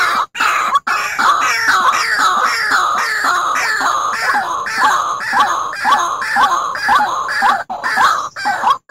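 White-breasted waterhen calling: a fast run of short, downward-sliding notes, about two to three a second, with a few brief gaps. It is a lure call, played to draw waterhens in for trapping.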